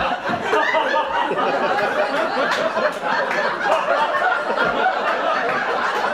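Theatre audience laughing, many people at once, with voices from the stage mixed in.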